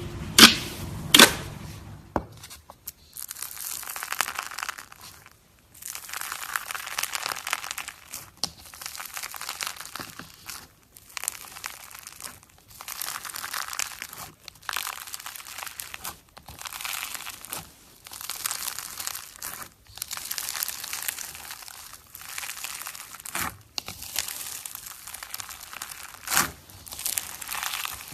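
Slime being squeezed and stretched by hand, making a crinkly, crackling noise in repeated strokes of one to two seconds with short pauses between, after two sharp clicks at the start.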